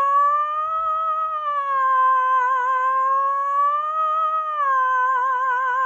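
A man's voice holding one long high sung note in head voice, on an open vowel with a wavering vibrato. The pitch lifts slightly about a second in and again around four seconds, then settles back. It demonstrates the head voice, with the resonance felt in the head rather than the chest.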